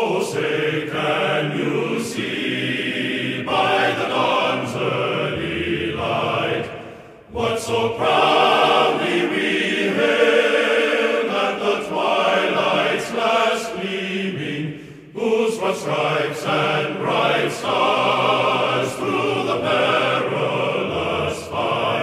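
A choir singing as background music. The phrases are broken by short pauses about seven and fifteen seconds in.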